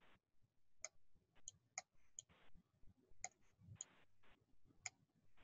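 Near silence with a few faint, irregular clicks, a stylus tapping on a pen tablet while handwriting is being added.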